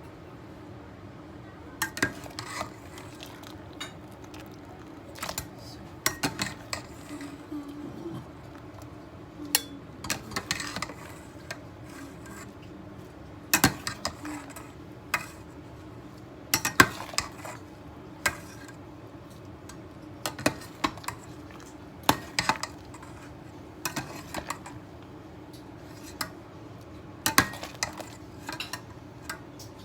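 Kitchen utensils clinking and knocking against dishes and pots in irregular, scattered strikes, over a steady low hum.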